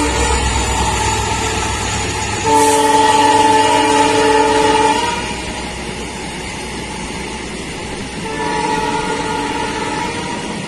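Freight train locomotive sounding its horn twice: a loud chord about two and a half seconds in, held for about two and a half seconds, then a fainter, shorter one near the end, over the steady running noise of the train carrying trucks on its wagons.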